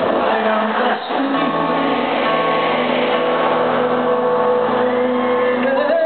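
Live concert performance of a piano ballad with band, heard from among the audience in a large arena. A long held note runs through the middle and steps up in pitch near the end.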